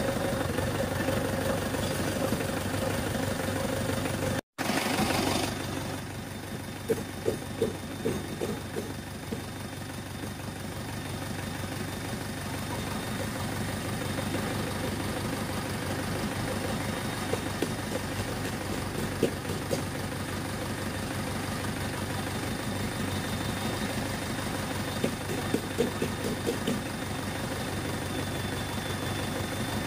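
Isuzu 4JX1 four-cylinder turbodiesel idling steadily, with a handful of sharp clacks standing out above the running at times. The sound cuts out for an instant about four and a half seconds in.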